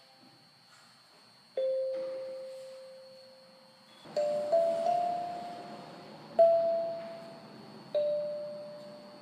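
Kalimba (thumb piano) played slowly: single metal tines plucked one at a time, about six notes, each ringing out and fading before the next.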